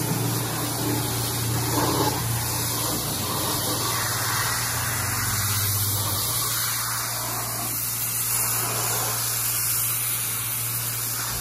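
Pressure washer's jet of water spraying against a jet ski's fibreglass hull, stripping off grime: a steady hiss over a low hum.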